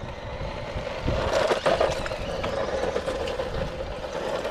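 Small electric 9501E RC car driving on rough tarmac: motor whine and tyre noise, growing louder about a second in and loudest around a second and a half in.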